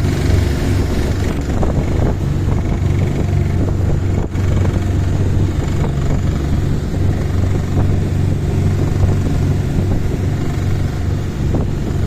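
Boat engine running steadily underway, a continuous low drone, with wind blowing on the microphone.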